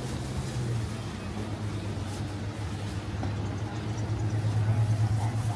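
Steady low engine hum over background noise, growing louder from about four seconds in.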